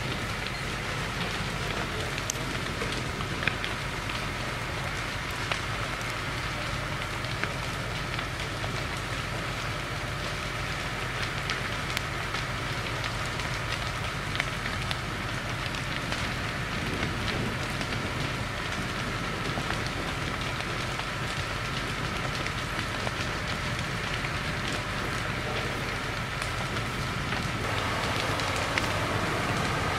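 A large timber barn fire burning hard: a dense steady crackle scattered with sharp pops, over the steady low hum of a fire engine's motor. The burning gets louder near the end.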